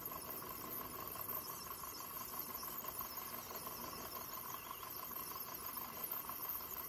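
Sanyo M-X650K boombox's cassette deck playing a blank stretch of tape between songs: faint, steady tape hiss with a thin steady tone through it.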